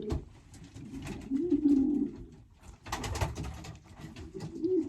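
Racing pigeons cooing in a loft: a low coo that rises and falls about a second in, and a shorter one near the end. A short burst of noise comes in between, about three seconds in.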